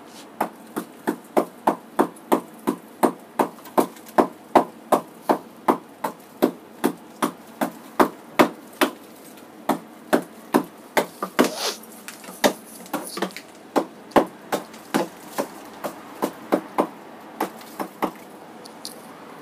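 A hand tool striking and chipping built-up ice inside a chest freezer to defrost it: sharp knocks about two or three a second, turning more uneven after a short pause in the middle, then stopping shortly before the end.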